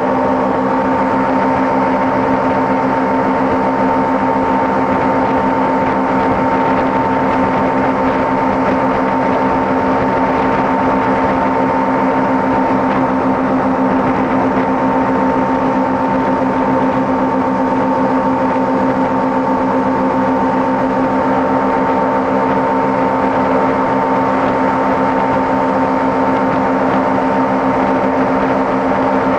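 Motorboat engine running steadily at planing speed while towing a water skier, its even drone over a continuous rush of water churned up in the wake.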